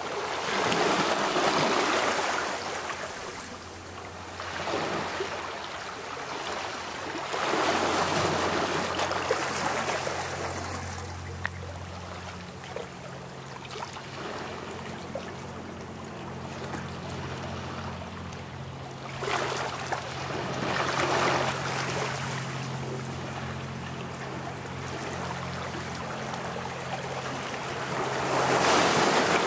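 Small sea waves washing in over a pebble and stone shore, surging up every several seconds and draining back with a softer hiss of water between.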